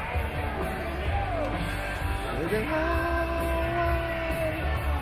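Rock music with a singing voice and a heavy bass; about two and a half seconds in, the singer slides up into one long held note.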